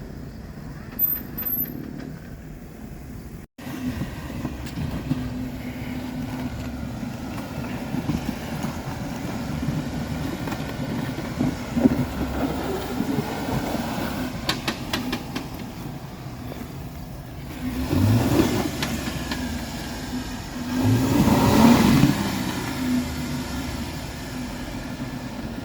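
Four-door Jeep Wrangler's engine running at low revs as it crawls over rocks, revving up in two louder surges, the second and longest near the end. A few sharp knocks come in between, around the middle.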